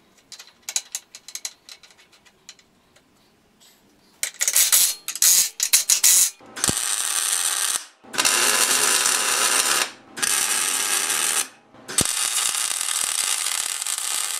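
Welding on a steel truck frame: a few short bursts at first, then steady crackling welds in runs of a second or two with brief gaps between them. Light clicks of metal parts being handled come before the welding.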